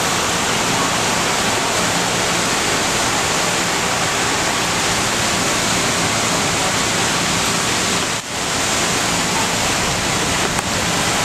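Steady rushing, hissing noise of high-pressure fire hose streams and an aerial ladder stream spraying water onto a burning building, with a faint low hum underneath.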